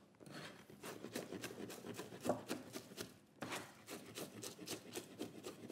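Cleaver chopping garlic cloves on a plastic cutting board: quick repeated knocks of the blade on the board, about three or four a second, with a brief pause about three seconds in.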